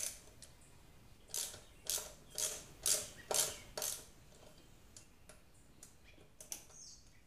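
Hand ratchet with a T40 Torx bit clicking in short strokes, about two a second, as the brake rotor bolts on a motorcycle front wheel are loosened a little at a time. A few fainter clicks follow near the end.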